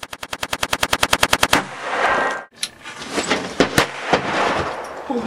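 A rapid, very even burst of automatic gunfire, about a dozen shots a second and growing louder, which stops about a second and a half in and trails off in an echo. A stretch of hiss with a few scattered sharp cracks follows.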